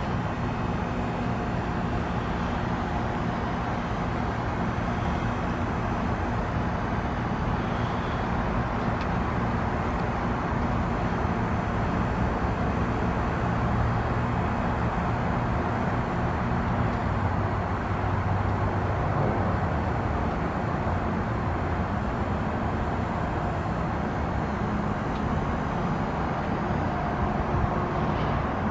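A 2023 RunTru heat pump's outdoor unit running steadily through a defrost cycle, with a steady low compressor hum under a broad hiss.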